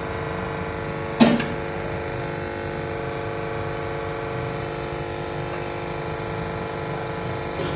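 A single sharp metal clink about a second in, a steel slotted spoon knocking against the cookware while fried bitter gourd is lifted out of the wok into a strainer, over a steady machine-like hum.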